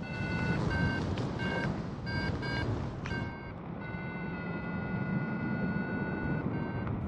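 Paragliding variometer beeping in short, rapid tones about twice a second, then changing to one steady, unbroken tone from about three seconds in, over the rush of wind on the microphone.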